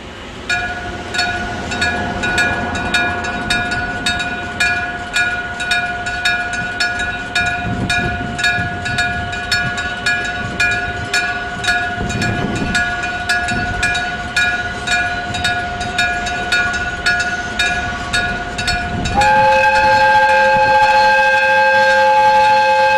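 Electric striking bell of a Japanese level crossing, struck nearly twice a second with each stroke ringing on. About nineteen seconds in, a locomotive's horn starts sounding two notes together, loud and held.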